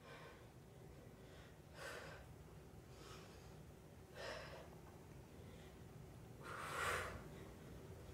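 A woman breathing hard through a set of crunches: a short, sharp exhale with each crunch, three of them about two and a half seconds apart, the last the loudest.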